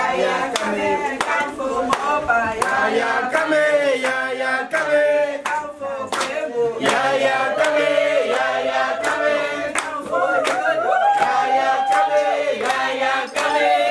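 A group of people singing together, with rhythmic handclapping keeping time.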